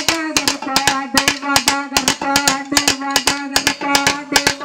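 Folk percussion music: sharp strikes in a fast, driving rhythm, about five or six a second, over a held melodic line that changes pitch only now and then.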